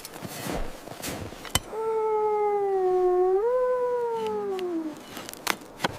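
One long wavering animal call lasting about three seconds: its pitch sags slowly, lifts suddenly partway through, then falls away. A few sharp knocks sound around it.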